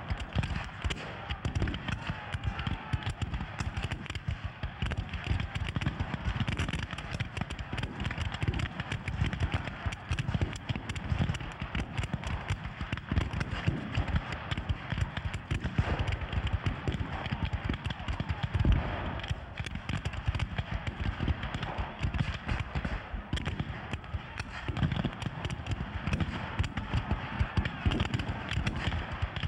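Continuous crackle of re-enactors' black-powder muskets firing, many shots overlapping in a ragged rattle, with men's voices shouting in among it.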